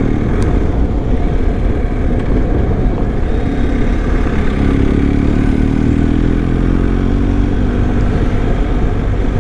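BMW R1250 GS boxer-twin motorcycle running steadily while being ridden, its engine note under a dense, steady rushing noise; the engine note rises slightly about halfway through.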